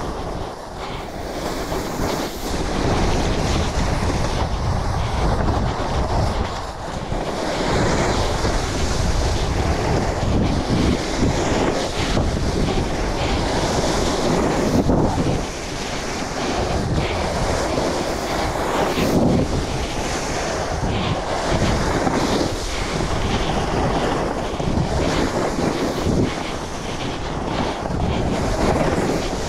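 Snowboard base and edges sliding over soft, bumpy, sun-cupped spring snow, a continuous rush that swells and eases with the turns, mixed with wind buffeting the microphone.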